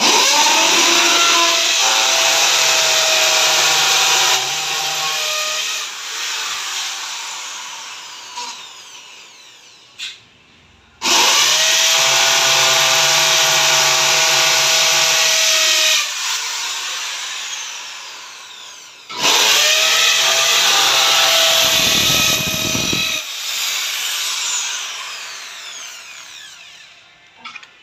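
Corded electric drill boring into a plastered masonry wall, run three times. Each run spins up quickly, holds a steady whine for about four to five seconds, then winds down slowly.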